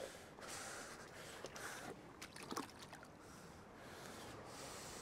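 Faint trickling and splashing of water in a shallow rock pool, with a few light clicks.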